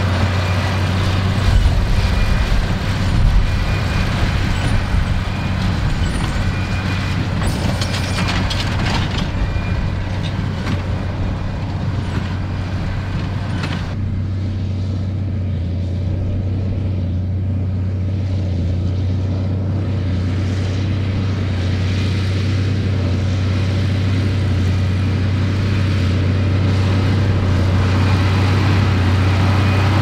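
Ford 8730 tractor's six-cylinder turbo diesel engine running steadily under load while pulling a Hesston big baler. A brief run of knocks comes about eight seconds in.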